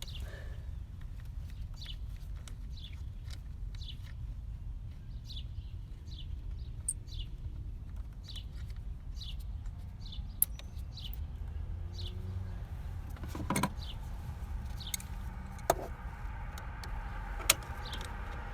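A small bird chirping over and over: short, falling chirps, one or two a second, over a steady low rumble. Four sharp clicks in the second half, from hand tools on metal.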